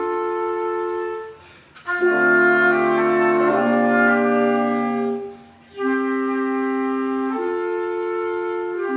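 Woodwind quintet of flute, oboe, clarinet, horn and bassoon playing slow, held chords. The music breaks off briefly twice, about one and a half and five and a half seconds in, and between the breaks a louder, fuller chord sounds with low bassoon notes beneath.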